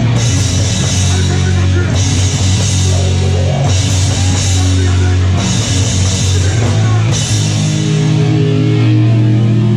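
Loud live rock band: drum kit, distorted electric guitar and bass playing hard, with a cymbal crash accenting about every second and a half to two seconds. About seven seconds in the cymbals stop and a held chord rings on.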